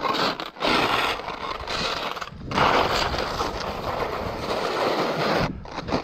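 Skis ploughing fast through deep powder snow: a loud, rushing hiss of skis and snow spray, broken by three brief lulls between turns, dying away at the end as the skier stops in the snow.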